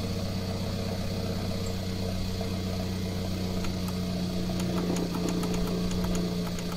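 Car engine idling with a steady low hum, and a few light clicks in the second half.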